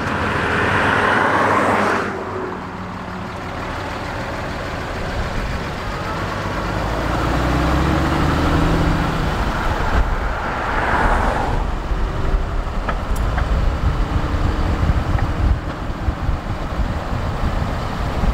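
Engine and road noise of a 22-foot motorhome driving on a town street, heard from inside the cab. The engine note comes up for a few seconds around the middle.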